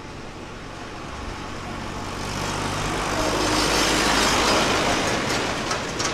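Ford Mustang GT's V8 driven slowly past at low revs: a steady low engine note with tyre noise on paving. It swells to its loudest about four seconds in as the car passes close, then fades.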